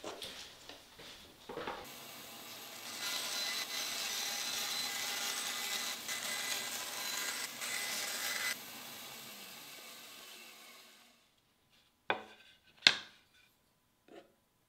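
Bandsaw switching on and cutting a sheet of 1/4-inch plexiglass for about five seconds, then running free and winding down. Near the end, two sharp knocks and a light tap.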